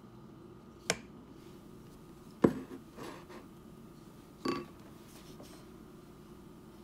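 A silicone spatula scraping thick cheesecake batter out of a bowl and knocking against the bowl and the rim of an aluminium cake pan: three short sharp knocks and a lighter one spread over about four seconds, over a faint steady hum.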